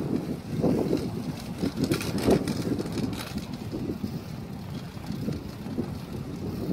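Wind buffeting the microphone of a moving bicycle, a fluctuating low rumble, with a few short rattles about two to three seconds in.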